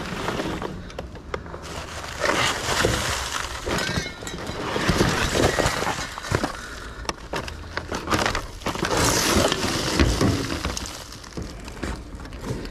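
Trash and scrap being dug through in a dumpster: an irregular run of knocks, clatter and scraping as debris is shifted and pulled about.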